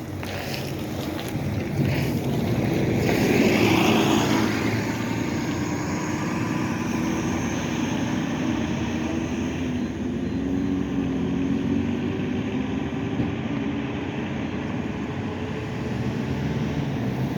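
Hybrid articulated bus's Cummins ISL9 diesel engine and Allison hybrid drive running under way, heard from inside the bus, building over the first few seconds and then holding steady, with a turbocharger whine over the engine.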